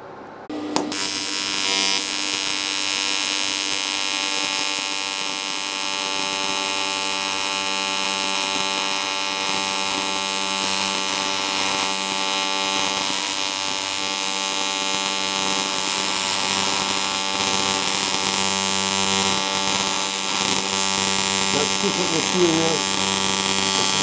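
AC TIG welding arc on aluminium from an R-Tech TIG 261 inverter welder. It strikes with a sharp click about half a second in, then runs on as a loud, steady buzz with a high hiss.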